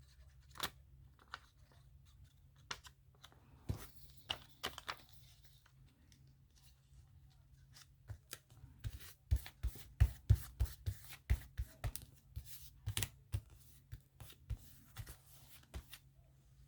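Paper pieces being handled for a glued collage: light rustles, then a dense run of sharp clicks and taps in the second half.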